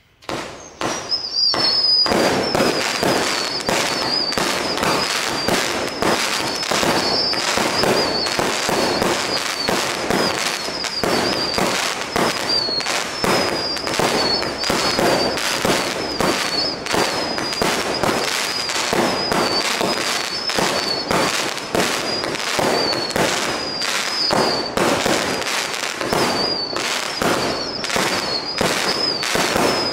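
A 100-shot 20 mm whistle-tail fireworks cake firing in rapid, near-continuous succession: a dense run of launches and bangs with a high, warbling whistle from the shells' whistle tails over them. It starts with a sudden bang just after a brief moment of quiet.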